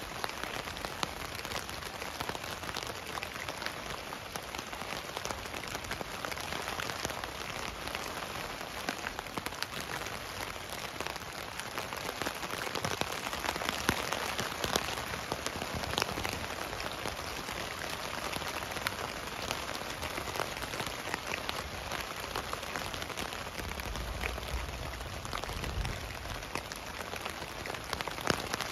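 Steady rain pattering on a tent's fabric, heard from inside the tent as a dense, even spread of drop impacts, with a brief low rumble about three-quarters of the way through.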